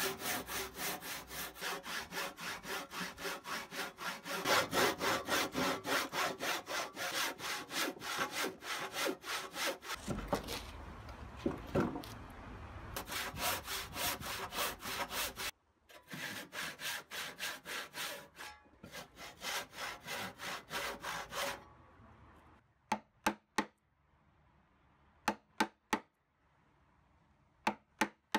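Hand saw cutting across a timber beam in steady back-and-forth strokes, about two a second, for a half-lap joint. The sawing stops briefly after about fifteen seconds, resumes, then ends a few seconds before the close. After it come a few sharp clicks, mostly in pairs, as a chisel pares out the waste wood of the lap.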